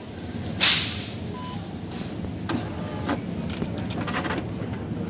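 Supermarket self-service produce scale with a built-in label printer: a short touchscreen beep, then the printer whirring and clicking for about two seconds as it prints a price label. A brief loud rustle comes about half a second in.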